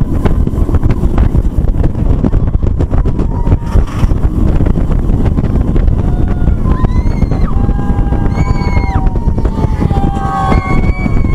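Wind blasting across the microphone over the rumble of a Bolliger & Mabillard hyper coaster train running fast along its steel track. From about six seconds in, riders let out several long, drawn-out screams.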